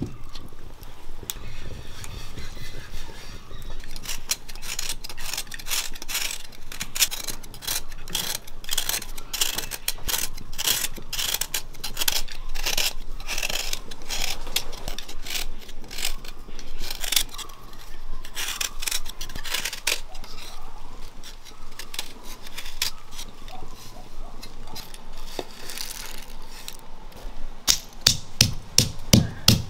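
Food-preparation handling sounds: a continuous run of small clicks, taps and scrapes of utensils and hands working ingredients, with harder, sharper strokes near the end.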